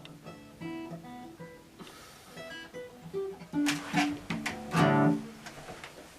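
Guitar picking single notes, then a few louder strummed chords about four and five seconds in: the closing bars of the song.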